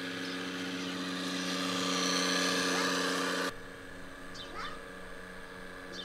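Scale RC construction models' sound-module diesel engine running steadily, growing a little louder. About three and a half seconds in it switches abruptly to a quieter steady engine hum, with a few short high chirps over it.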